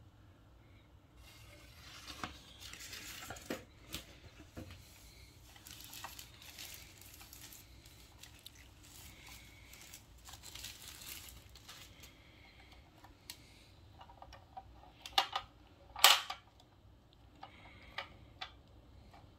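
Thin paper wrapping rustling and crinkling as a plastic lantern speaker is unwrapped by hand. This is followed by a few sharp knocks of hard plastic as the lantern is handled, the loudest about three-quarters of the way through.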